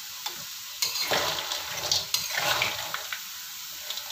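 Metal spatula scraping and scooping crisp-fried taro cubes in a wok of hot oil, the cubes clattering against the pan for about two seconds over a steady sizzle. The dry rattle is the sign that the taro is fried crisp.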